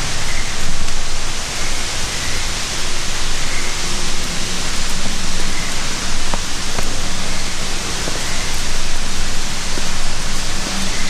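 Steady rush of water, an even noisy roar with no breaks.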